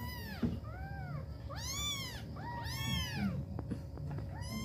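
Kittens mewing, a run of about six short, high-pitched meows, each rising and falling in pitch, two of them overlapping at different pitches.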